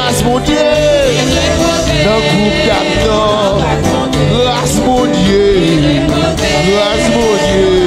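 Haitian Creole gospel praise song (louange): a singer's voice, wavering and sliding in pitch, over a steady beat and bass accompaniment.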